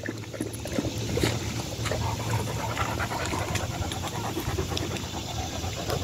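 Rottweiler and another black dog lapping water: many quick, irregular wet ticks.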